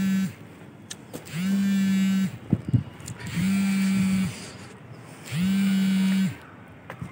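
A loud, low electric buzz sounding in pulses of about a second, repeating roughly every two seconds, each one swooping up at its start and dropping at its end.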